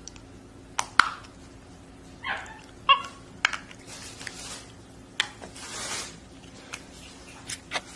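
Capuchin monkey handling and gnawing a hard red plastic toy egg: scattered sharp clicks and taps of teeth and fingers on the plastic, with scratchy rustling and a few short squeaks about two to three seconds in.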